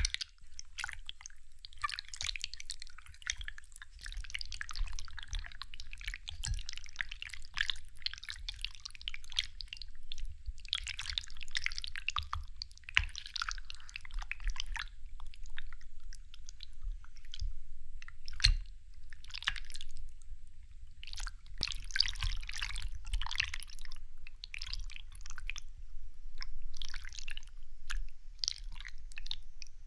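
Close-miked wet, squishy sounds of ice jelly, coming in irregular bursts of one to two seconds with short pauses between.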